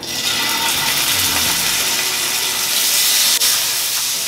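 Raw chicken breasts sizzling in hot oil in a cast-iron skillet as they are laid in to sear: a steady hiss that starts suddenly.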